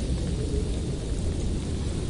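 Blizzard wind blowing hard and steadily: a dense low rumble with a fainter hiss above it.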